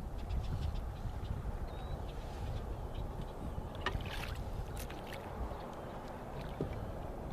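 Water lapping around a small boat, with a steady low rumble of wind on the microphone and a few short knocks or splashes about four and five seconds in.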